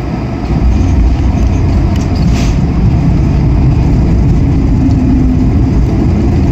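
Cabin noise in an Airbus A220 rolling down the runway after landing: a loud, steady low rumble of its Pratt & Whitney geared turbofans and wheels on the concrete, rising about half a second in and then holding.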